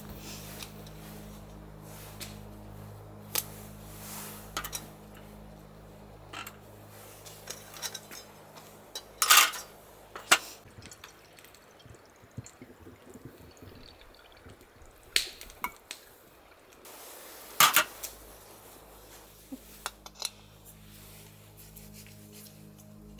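Clatter of camp cookware and dishes: scattered clinks and sharp knocks, the two loudest about nine and seventeen seconds in, over a low steady hum that drops away for a few seconds in the middle.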